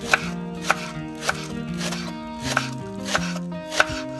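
Kitchen knife chopping spring onions on a wooden cutting board: six sharp strikes, with a short pause in the middle, over background music.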